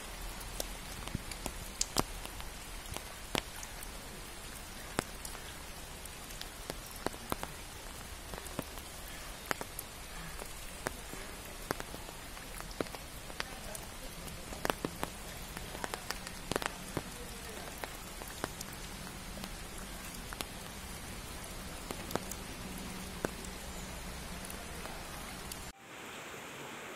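Heavy rain falling steadily on floodwater and foliage, with sharp drop ticks scattered through it. It cuts off abruptly near the end.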